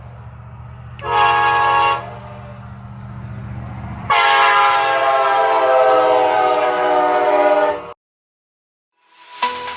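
Train horn over a locomotive's low engine rumble: one short blast about a second in, then a long blast from about four seconds in whose pitch sags slightly before it cuts off abruptly. Light mallet-percussion music begins just before the end.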